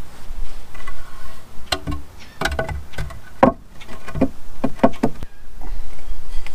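Several sharp wooden knocks and scrapes: lumber boards bumped and shifted into place on the floor of a plywood box.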